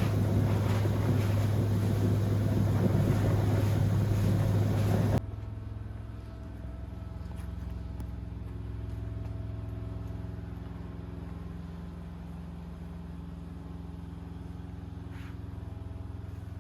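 Steady machine noise with a strong low hum, which cuts off abruptly about five seconds in to a quieter, steady mechanical hum carrying several level tones.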